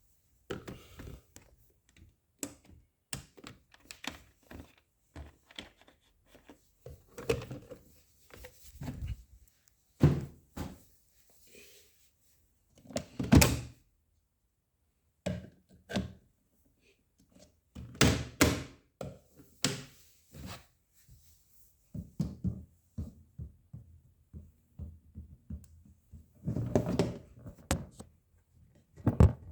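Irregular thumps and knocks, some single and some in short clattering runs, spaced a second or more apart; the loudest comes about halfway through.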